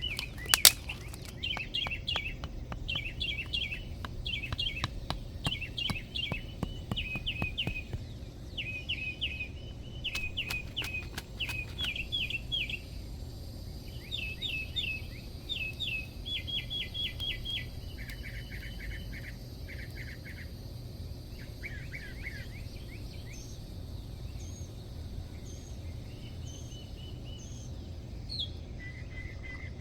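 Small birds chirping in quick, repeated trills, with a few sharp knocks in the first half and a steady low rumble underneath.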